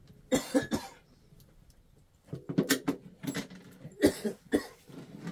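A person coughing in three short bouts, a couple of seconds apart.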